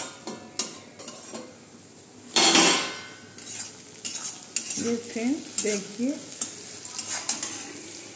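A steel spatula stirs and scrapes cooked potato, carrot, onion and peanuts around a kadhai in a run of short clicks and scrapes, with the food sizzling. About two and a half seconds in there is a loud metallic scrape as the steel plate lid comes off the pan.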